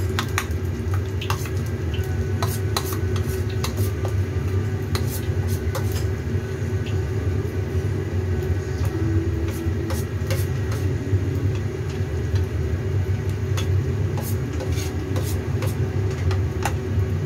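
Battered tempeh slices frying in hot oil in a wok: a steady sizzle with scattered sharp crackles and pops, over a low steady hum.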